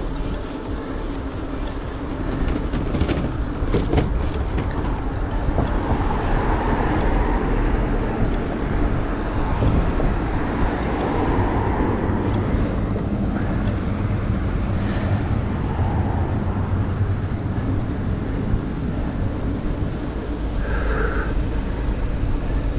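Wind rumbling on the microphone of a GoPro action camera on a moving mountain bike, with tyre and road noise underneath. There is a scatter of sharp ticks in the first few seconds.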